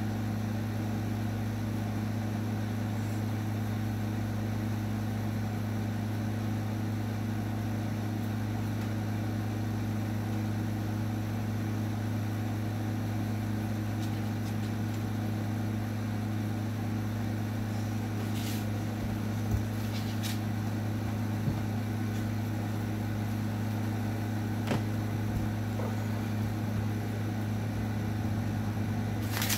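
Steady low machine hum, with a few faint clicks in the second half.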